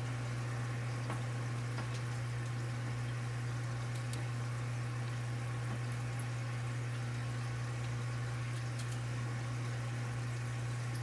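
A steady low hum over a faint even hiss, with a few faint clicks.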